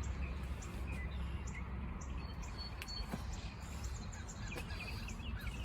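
Small birds chirping now and then over a steady low rumble of outdoor background noise, with a few faint clicks.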